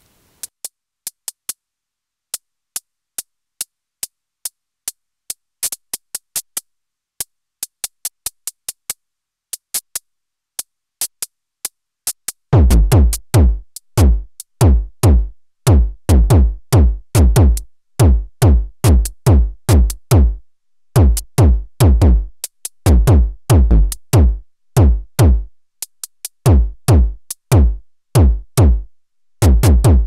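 Electronic drums from a Eurorack modular synthesizer playing a random-gated beat: closed hi-hat ticks in an uneven pattern, joined about 12 seconds in by a deep electronic bass drum whose pitch drops on each hit.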